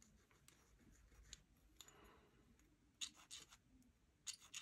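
Near silence, with faint small clicks and taps of plastic model-kit parts and tools being handled. They come in two short clusters, about three seconds in and again just after four seconds.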